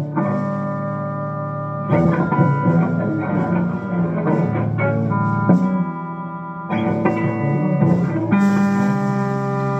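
Guitar music, with sustained chords that change every second or two.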